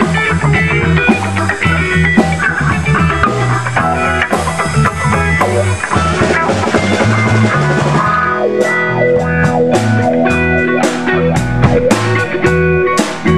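Live band playing a funk groove: hollow-body electric guitar over a drum kit, with moving low notes underneath. From about two-thirds of the way in, sharp, evenly spaced drum strikes stand out.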